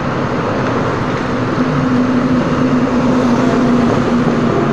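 Motorcycle engines and traffic noise with wind on the microphone as the bike rides in slow traffic; a steady engine hum comes up about a second and a half in and holds for about three seconds.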